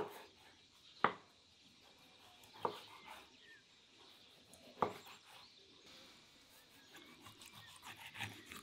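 Kitchen knife slicing through a raw beef heart on a wooden cutting board, the blade knocking sharply on the board four times, a second or two apart.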